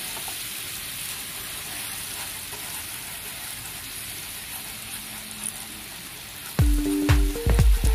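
A fish sauce, water and sugar mixture with garlic and chili sizzling in a frying pan as wooden chopsticks stir it, a steady hiss. Background music with a beat comes in near the end.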